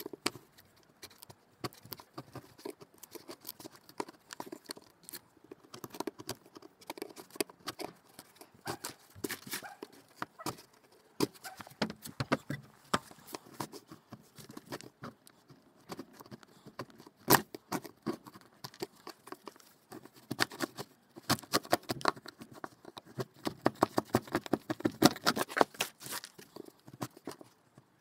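Steel scraper blade scraping and chipping old sealant and grit out of the joint between stone and a wooden frame: a run of short scratchy scrapes and clicks that come quicker near the end.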